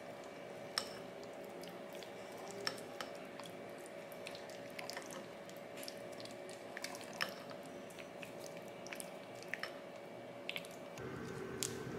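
Silicone spatula folding chopped fruit through a creamy dressing in a glass bowl: soft wet squishing with irregular light clicks and taps against the glass. A steady hum runs underneath.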